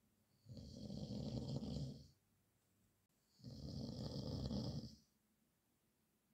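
A man snoring in his sleep: two long, rough snores about three seconds apart, each lasting about a second and a half, with quiet between them.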